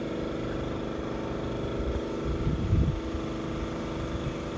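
A nearby engine idling steadily with an even hum, with a few low rumbles about two and a half seconds in.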